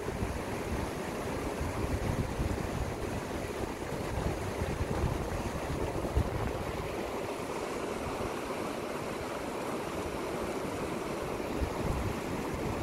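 Shallow mountain river rushing steadily over rocks and through small rapids, with an unsteady low rumble underneath.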